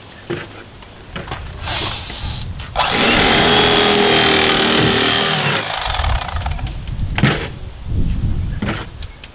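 Electric fillet knife running for about two and a half seconds in the middle, a steady motor hum as it cuts catfish fillets, with scattered handling knocks before and after.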